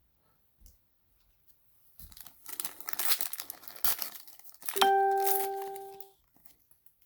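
A foil pack of Panini Chronicles basketball cards being torn open, the wrapper crinkling for about two and a half seconds. About five seconds in, a single clear chime rings out and fades over about a second.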